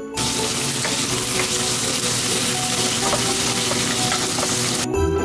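Thick slices of pork belly sizzling in a hot frying pan, a steady hiss with a few light clicks, cutting off suddenly near the end.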